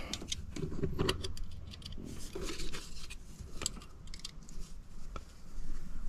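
Scattered light clicks and rattles of multimeter test probes and loose wiring being handled against a removed heat-strip contactor, as the probes are set on its terminals for a resistance check.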